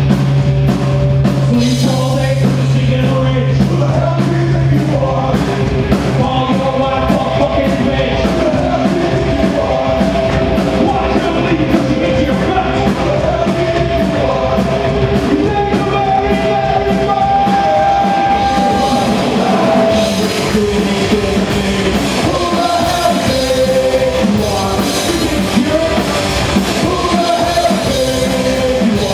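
Punk rock band playing a song on electric guitars, bass guitar and drum kit, with singing. A low note is held through the first five seconds or so.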